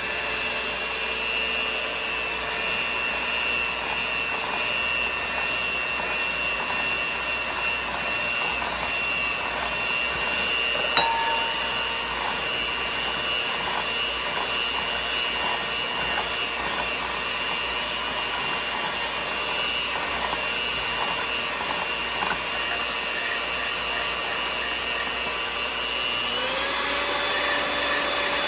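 Electric hand mixer running steadily, its beaters whipping instant coffee, sugar and hot water in a bowl with a steady whine. Near the end the motor's pitch steps up.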